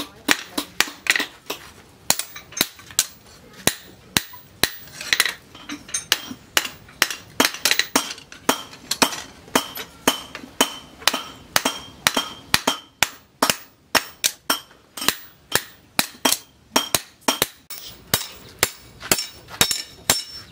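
Hand hammer forging a red-hot steel cleaver blade on a post anvil: steady blows, about two to three a second, each with a short metallic ring.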